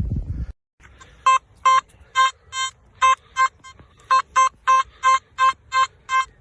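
Metal detector giving a repeated high target tone, short pitched beeps about three a second, as the coil is swept back and forth over a buried target; it reads 70–72 and sounds like a good signal but turns out to be a bit of tin. A short low rustle comes just before the beeps start.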